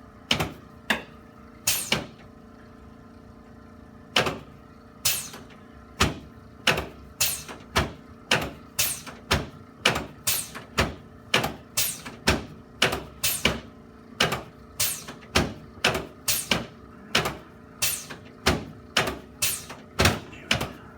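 A long run of sharp clicks or knocks, each short with a brief ring after it. Three come in the first two seconds, then after a pause of about two seconds they come steadily at roughly two a second, at uneven spacing.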